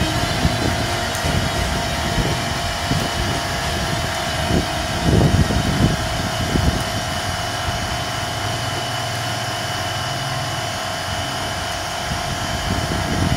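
A steady mechanical hum that holds a few fixed tones. Short knocks and rattles of plastic parts being handled come about five to six seconds in.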